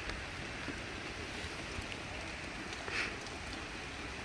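Steady hiss of rain falling on the forest canopy, with a brief faint higher sound about three seconds in.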